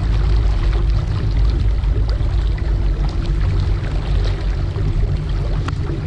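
A small boat under way: its motor running steadily, with water rushing along the hull.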